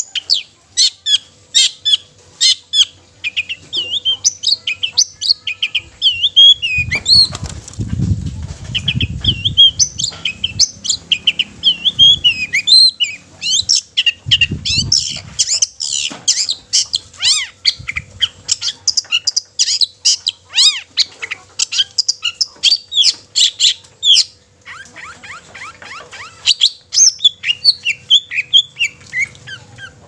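Long-tailed shrike (cendet) in full, vigorous song: a fast, varied chatter of short high notes and quick sweeps, almost without pause. A low rumble comes under the song from about seven to ten seconds in and again around fifteen seconds, and the notes turn softer and lower for a couple of seconds near the end.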